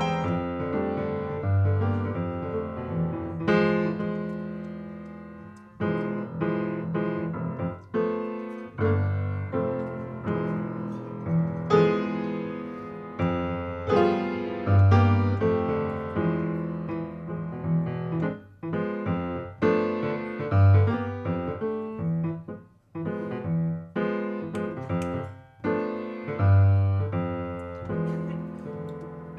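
Yamaha grand piano played solo in a jazz style: chords struck and left to ring and fade, with a deep bass note about every five to six seconds.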